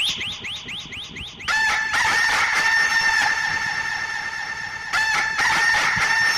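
Horror ringtone: a fast run of short rising chirps, then a shrill, high, held cry-like tone that breaks off briefly about five seconds in and starts again.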